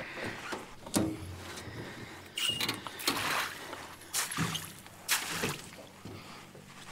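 Knocks and clatter of a landing net and fishing gear being handled in a jon boat: a few sharp knocks, with stretches of hissing noise between them.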